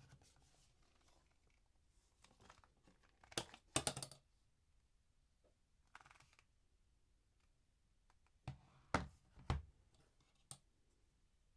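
Quiet close-up handling sounds: scattered taps and rustles, with a quick cluster of sharp clicks about three and a half to four seconds in, another round of three louder taps around nine seconds in, and a last single click shortly after.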